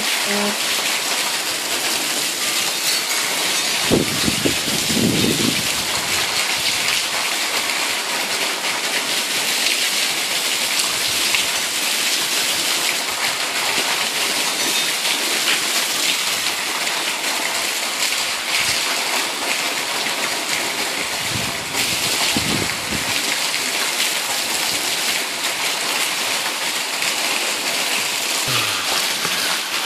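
Heavy monsoon rain falling steadily, with a stream of runoff pouring off the roof edge and splashing below. Two brief low rumbles come through, about four seconds in and again about twenty-two seconds in.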